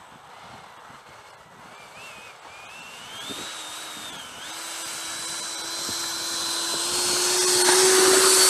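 Electric ducted fans of an FMS 70 mm F-18 model jet spooling up: a whine that climbs in pitch a few seconds in, then holds and grows steadily louder toward the end as the throttle is opened.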